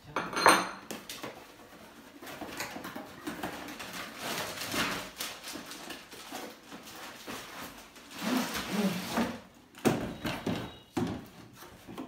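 Handling noise as metal ceiling fan blades are worked out of their cardboard box: cardboard and plastic wrap rustling, with metallic clinks and knocks. There is a sharp, ringing clink about half a second in.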